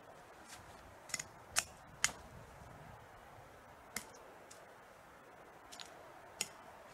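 Sharp woody clicks and snaps from hand work on a thin dead tree: about seven, spaced irregularly, the loudest two close together about a second and a half to two seconds in.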